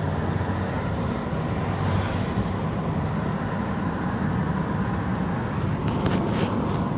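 Audi 2.7T twin-turbo V6 running steadily, with a faint hiss about two seconds in and a quick cluster of short, sharp hissing pulses about six seconds in: the turbo flutter and hissing the owner cannot explain.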